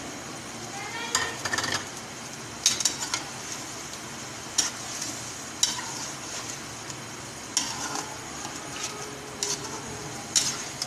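Metal slotted spatula stirring chicken, potatoes and freshly added chopped tomatoes in an aluminium pot, with irregular scrapes and clinks against the pot over a steady sizzle of the frying masala.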